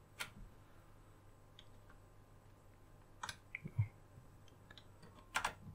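USB plug being pushed and worked into a newly fitted, stiff USB socket on a Toshiba A660 laptop: a few faint scattered clicks and scrapes, with a sharper pair of clicks near the end. The new socket's tight contacts make the plug hard to push in.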